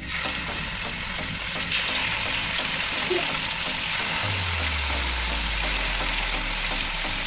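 Food sizzling in hot oil in a pan, a steady crackling hiss that starts suddenly.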